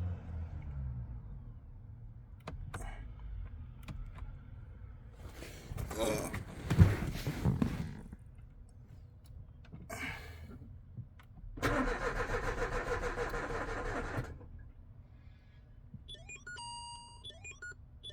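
Renault Mégane's starter motor cranking the engine for about three seconds without it catching: a no-start that the mechanic puts down to a faulty engine RPM signal. Earlier comes a noisy burst with a sharp knock, and near the end a few short electronic beeps.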